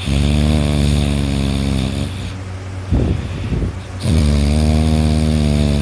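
A person snoring loudly in sleep: two long, steady-pitched snores of about two seconds each, with a short rough breath between them.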